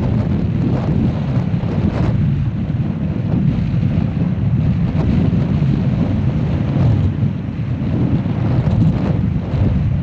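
Strong wind buffeting the microphone: a loud, gusting low rumble with brief flares.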